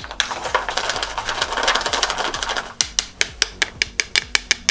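A metal spoon stirring and scraping cocoa-dusted toffee cubes around a plastic bowl. Near the middle the stirring stops and quick, even clicks take over, about five or six a second.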